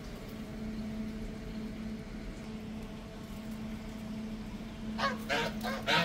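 Honeybees buzzing around an opened hive as a steady low hum. About five seconds in, a bird gives a quick run of four short honking calls.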